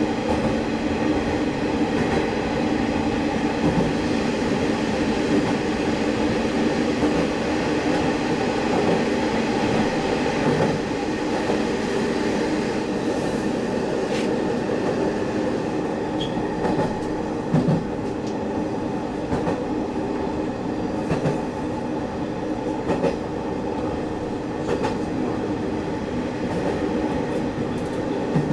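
Diesel railcar running along the line, heard from inside the car: a steady engine and running rumble, with occasional clicks and knocks from the wheels on the track.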